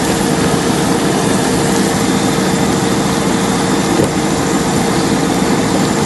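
Vegetables and onions frying in a pot, a steady even sizzle, with a faint steady hum underneath.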